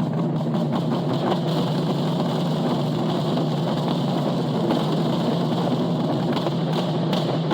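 Japanese taiko drums being played in a dense, steady rhythm.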